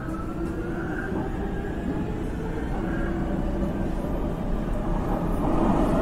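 Subway train running, a low rumble with a faint electric motor whine rising slowly in pitch, growing steadily louder.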